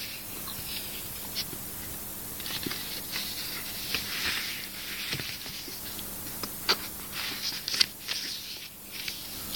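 Phone box packaging being handled: rustling of paper and card, with scattered light clicks and taps.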